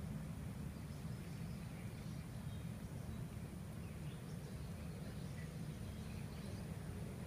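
Open-air morning ambience: a steady low background rumble, with faint scattered bird chirps over it.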